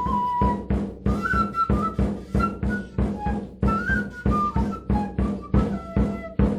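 Peruvian folk music: a high, flute-like melody in held notes over a steady beat of drum strokes, about three a second.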